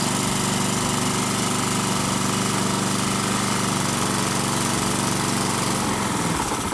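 Honda push lawnmower's four-stroke engine running steadily on choke after being started with starting fluid sprayed into the intake, the usual first fix for a mower that won't start. It stops near the end.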